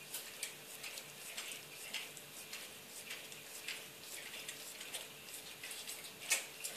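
A bull terrier licking a cat's fur: a run of short licking strokes, about two a second, with one sharper click about six seconds in.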